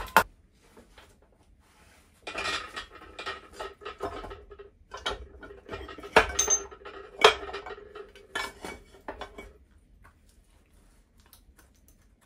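Two sharp mallet knocks on the engine stack, then a long stretch of metal-on-metal clinking and scraping with a steady ringing under it. A few harder knocks come near the end as the 13B rotary's cast-iron intermediate housing is worked loose and lifted off the eccentric shaft and rotor.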